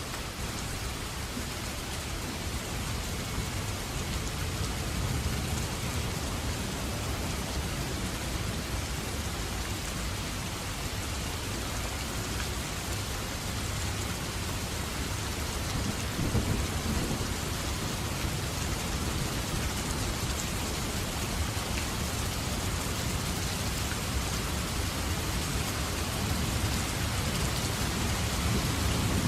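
Steady heavy rain with low rolls of thunder, one about halfway through and another swelling up at the end.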